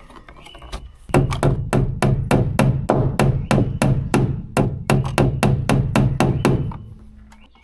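A motor starts about a second in and runs for about six seconds with a regular clicking, about four clicks a second, then winds down.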